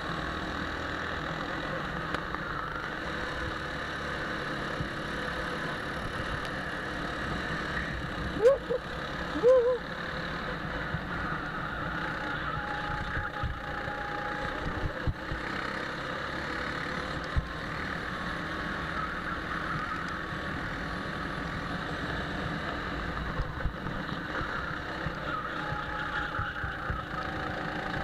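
Go-kart engine running steadily at speed, heard from on board the kart with wind noise on the microphone. Two brief louder pitched sounds come about eight and nine and a half seconds in, with a few small knocks.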